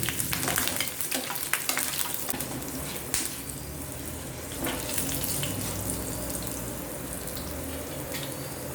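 Cumin seeds, peppercorns and garlic sizzling in hot coconut oil in a pan as they are sautéed, with the spoon clicking and scraping against the pan over the first few seconds, then a steadier sizzle.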